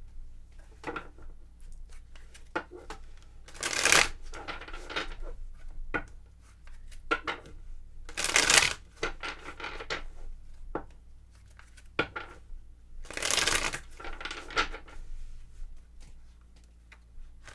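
Tarot cards being shuffled and handled: three louder rushing shuffles roughly four to five seconds apart, among many small card clicks and taps.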